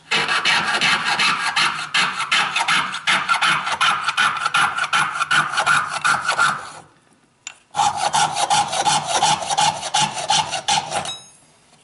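Jeweler's piercing saw cutting through round metal rod stock held in a saw vise: fast, even back-and-forth strokes, several a second, with a steady ringing note from the blade and rod. The sawing pauses for about a second midway, resumes, and stops shortly before the end.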